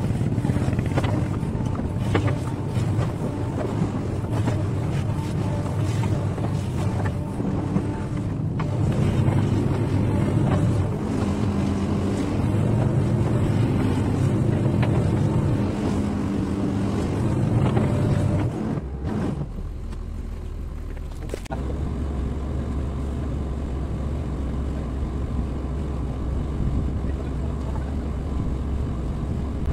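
XCMG XE215C hydraulic excavator's diesel engine running under load as it digs and mixes gravel, a steady low drone. About two-thirds of the way through the sound dips briefly, then settles into a steadier, lower hum.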